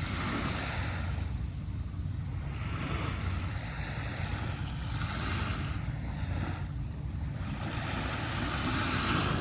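Small waves breaking and washing up a sandy beach, their hiss swelling and fading every two to three seconds over a steady low rumble.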